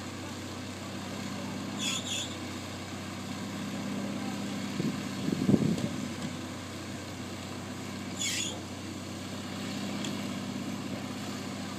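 Small backhoe's engine running steadily while digging, with a louder, rougher rumble about halfway through and two short high squeaks, one about two seconds in and one about eight seconds in.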